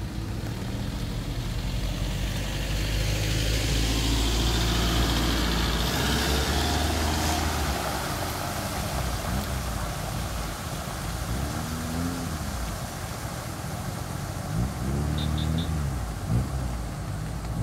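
A pickup truck drives past on a wet road, its engine running and its tyres hissing through standing water. The sound swells as it passes, a few seconds in, then fades as it moves away.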